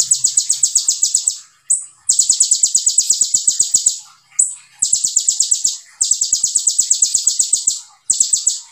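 Kolibri ninja sunbird singing its rapid-fire 'tembakan' song: dense trills of sharp, high notes at about a dozen a second, in phrases of one to two seconds with short breaks between them.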